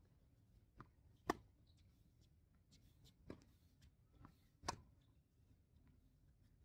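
Tennis rally: a ball struck by racquets and bouncing on a hard court, five sharp pops, the loudest about a second in and again just before five seconds, with fainter ones between.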